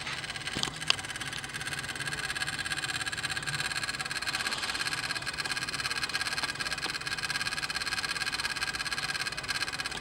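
Rapid, steady clicking from an unidentified component in the engine bay of a Toyota Hilux's 3.0L 1KD-FTV diesel, heard with the ignition key switched to ON. Two sharper clicks stand out about half a second and just under a second in.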